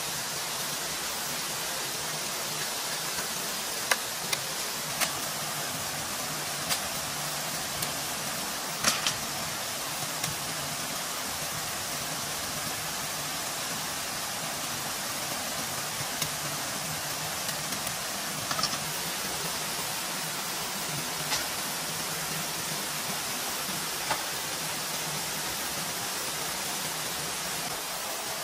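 Steady hiss of water, with about ten sharp clicks and knocks scattered over it, the loudest about four and nine seconds in.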